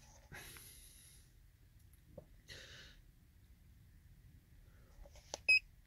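Two soft exhales in the first half. Then a key press on the Autel MaxiTPMS TS408 TPMS tool near the end, a sharp click with a short high beep as a menu option is confirmed.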